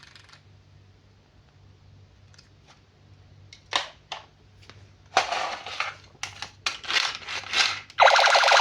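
Toys and packaging being handled: quiet at first, then a couple of sharp clicks, then a run of quick rustling, crinkling scrapes. Near the end a loud steady noise starts abruptly.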